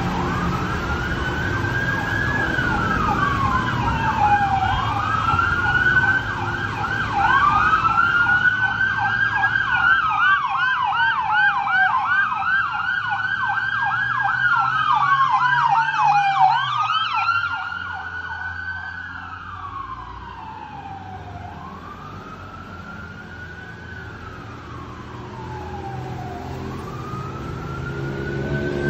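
Emergency vehicle siren on a city street, wailing in slow rising-and-falling sweeps, with a rapid yelping tone overlapping for several seconds in the middle. It fades partway through and grows louder again near the end, over low traffic rumble.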